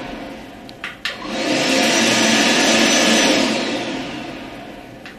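Shernbao PSD-918 stand finishing dryer's blower motor being paused and restarted with its knobs. The rushing air and motor whine wind down, a couple of knob clicks come about a second in, and the whine rises back to full blowing. Near the end it winds down again to another click.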